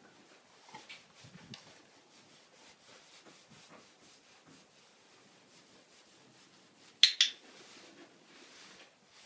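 Saddle tack being fitted on a horse: faint rubbing and small clicks of the saddle and girth being handled, with two sharp clacks in quick succession about seven seconds in.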